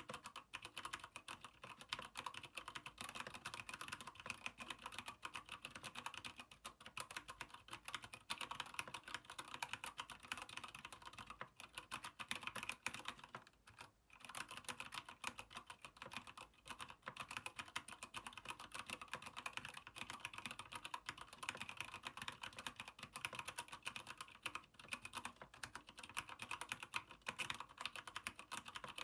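Typing on a Keychron K8 aluminium-frame mechanical keyboard with Gateron Brown switches: a fast, continuous stream of keystrokes, with a brief pause about halfway through.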